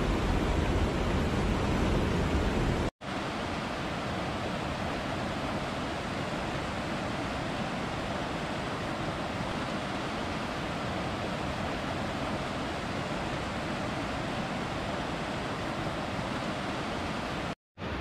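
Rushing water of a forest mountain waterfall and stream cascading over rocks, a steady rush. It is heavier and deeper for the first three seconds, breaks off for a moment, then goes on lighter, with another brief gap near the end.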